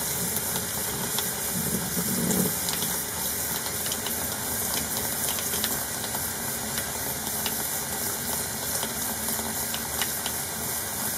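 Tap water running steadily into a sink, with liquid pouring from a glass flask into the stream.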